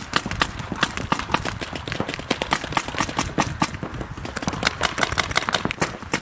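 Many paintball markers firing at once, a rapid, irregular crackle of pops from several players shooting across the field.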